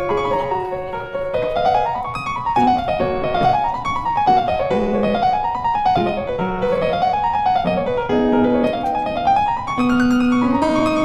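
Background piano music: flowing runs of notes that climb and fall in repeated arcs over low held bass notes.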